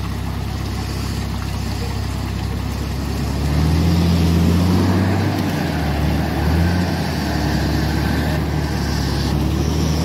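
Toyota Land Cruiser engines revving under load while a mud-stuck Land Cruiser 80 is pulled out on a tow strap by a Land Cruiser 100. The revs climb about three and a half seconds in, dip, rise briefly again a couple of seconds later, then settle to a steady run.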